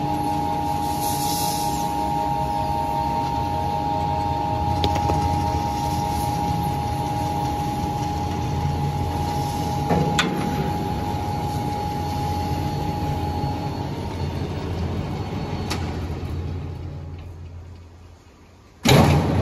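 Screw-type sawdust briquette machine running under load while it extrudes a briquette: a steady low hum with a steady whining tone over it, and a couple of short knocks. The noise fades away near the end, then comes back suddenly louder.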